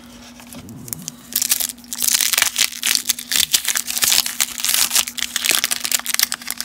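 Wax-paper wrapper of a 1991 Topps Traded baseball card pack being torn open and peeled off the cards: a dense crinkling and crackling that starts about a second in.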